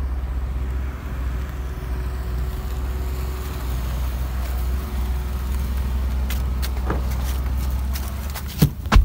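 Small hatchback taxi pulling up at the roadside and idling with a steady low rumble. Near the end come sharp clicks and knocks as its door is opened.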